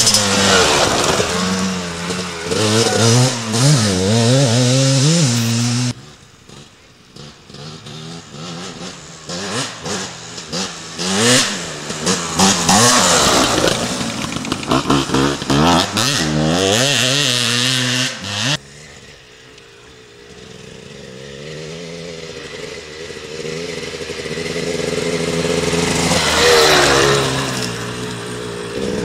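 Dirt bike engines revving on a trail as riders pass close by, the pitch swinging up and down with the throttle. The sound drops off abruptly twice, and near the end a bike comes closer, getting louder, and goes past.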